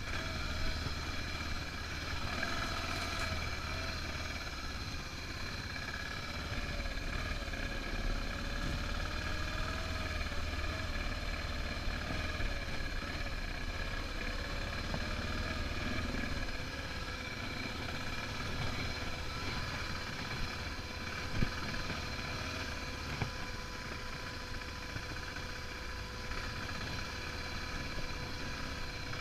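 Single-cylinder 650 cc dual-sport motorcycle running steadily as it is ridden along a dirt track, heard from a camera on the bike, with one sharp knock about two-thirds of the way through.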